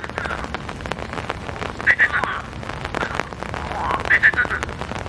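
Frogs croaking in the rain, with a loud call about two seconds in and another about four seconds in. Steady rain falls underneath with many small drop hits.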